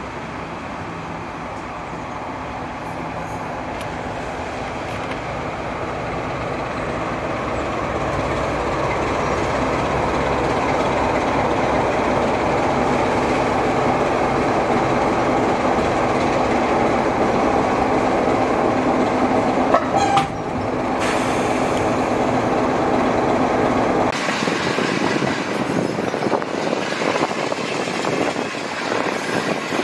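Class 47 diesel locomotive D1842, its Sulzer twin-bank engine running steadily and growing louder as it draws alongside an open carriage window, with a short sharp sound about twenty seconds in. After about twenty-four seconds the engine sound gives way to the carriage rolling along with wind rushing past the open window.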